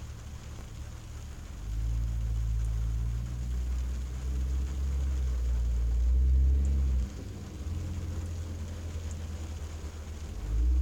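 Rain on a car windshield heard from inside the car: a low, uneven rumble that swells about two seconds in and eases about seven seconds in, with a few faint drop ticks.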